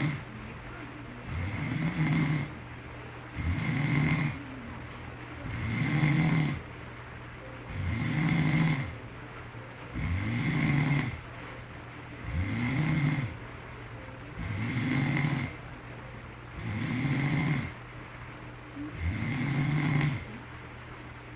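A man snoring in a steady rhythm, about ten snores, one every two seconds or so.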